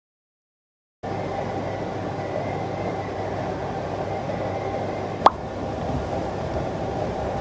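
Steady treadmill motor and belt noise, starting about a second in, with a single sharp click about five seconds in.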